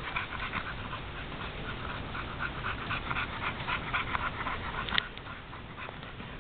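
Pit bull panting fast in short, even breaths, with one sharp click about five seconds in.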